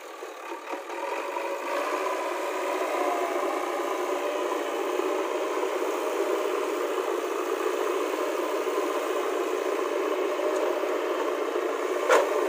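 JCB 3DX backhoe loader's diesel engine running steadily under load as the front loader bucket works through loose soil, growing louder about two seconds in. A single sharp knock sounds near the end.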